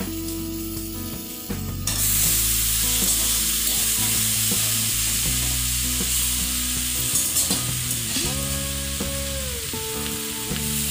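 Onion and spice masala sizzling in hot oil in a metal pan as boiled chicken pieces are scooped in. The sizzle grows suddenly louder about two seconds in and keeps going, with spoon stirring and scraping against the pan.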